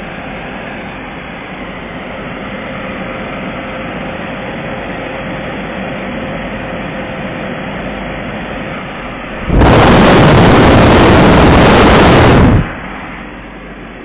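Fujiair FP-9C portable air conditioner running with a steady rushing hum. About nine and a half seconds in, a much louder rush of noise cuts in, lasts about three seconds, then stops suddenly.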